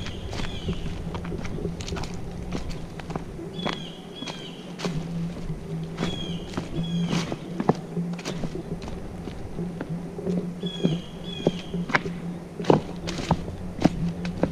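A hiker's footsteps on a forest trail, with a small bird repeating short, high, falling chirps, often in pairs. A low hum comes and goes underneath.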